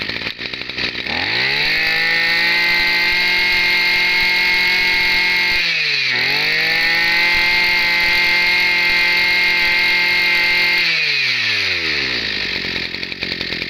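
Small two-stroke brushcutter engine, a Maru 20 of 20cc, on a test run. It catches about a second in and quickly climbs to a steady high speed. It dips briefly and recovers near the middle, then slows and dies away near the end.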